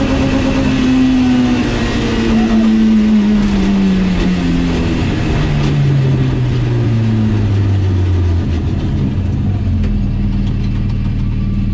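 BMW E30 320is's S14 four-cylinder engine heard from inside the cabin, its revs falling as the car slows, then settling into a low steady run about ten seconds in. A few light clicks come near the end.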